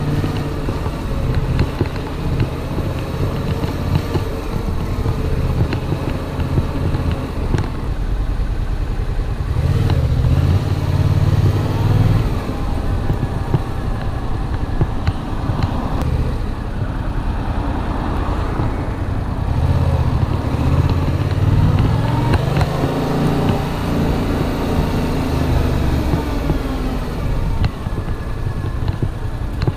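Yamaha MT-07's 689 cc parallel-twin engine running under way at low road speed, its revs rising and falling several times as the throttle is opened and closed.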